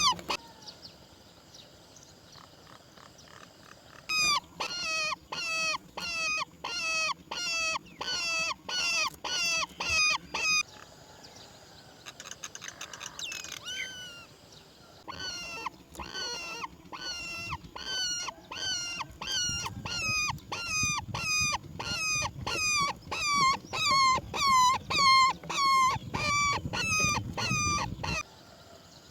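Roller calling at the nest: long runs of the same short, clear, hooked note repeated about twice a second. The runs break off for a few seconds in the middle and stop shortly before the end, with a low rumble under the last calls.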